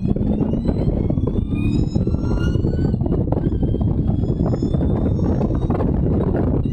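Allard J2's V8 engine accelerating hard under full throttle, its pitch rising through the gear, with an upshift about three seconds in before it pulls again. Heard from the open cockpit over a heavy low rumble.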